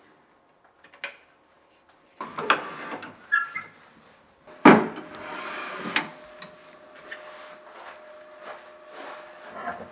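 Knocks and rubbing of wood being handled, with one sharp, loud knock about halfway through. A faint steady hum starts with that knock and carries on.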